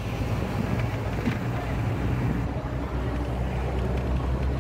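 Steady low rumble of a moving bus, its engine and road noise heard from inside the passenger cabin.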